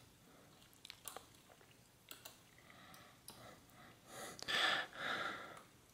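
Faint handling of bicycle brake cable housing as it is held and bent against the frame: a few light clicks in the first two seconds, then two short rustling noises near the end.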